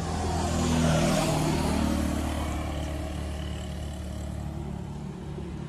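A motor vehicle engine running steadily, with a passing vehicle that swells and fades over the first two seconds.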